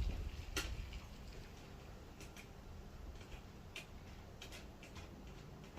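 Scattered light clicks and taps, a handful spread over several seconds, from small parts being handled inside a car door while the rear door-handle linkage is fitted.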